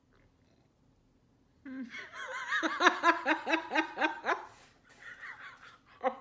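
Woman laughing hard, starting suddenly about two seconds in with quick ha-ha pulses, about five a second, then trailing off into quieter laughter.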